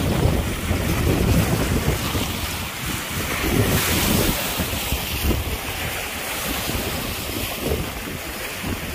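Wind buffeting the microphone in gusts, with choppy lake waves washing in and breaking on a rocky shore.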